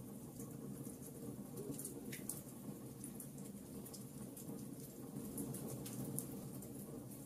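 Logs burning in a fireplace, crackling with frequent sharp pops and snaps over a steady low rush of flame.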